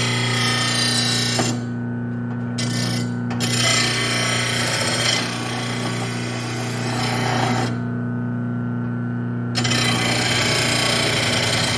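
VEVOR 2/3 HP 500 W lawn mower blade sharpener running with a steady motor hum while a mower blade is pulled across its grinding wheel. The grinding stops for about two seconds twice, once about a second and a half in and again near the end, leaving only the motor hum.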